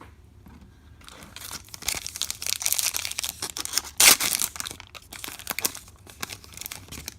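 Trading card pack wrapper being torn open and crinkled, with the loudest rip about four seconds in.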